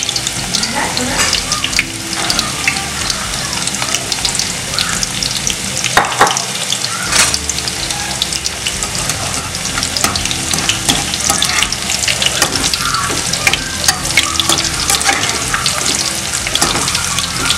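Maida-coated baby corn pieces deep-frying in hot oil in a kadai: a steady, dense crackling sizzle with a few louder pops. This is the first of two fryings, taking the pieces toward brown.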